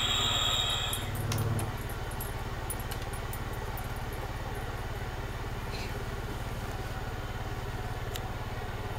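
A steady low buzzing hum with a fast flutter, and a brief high tone in the first second.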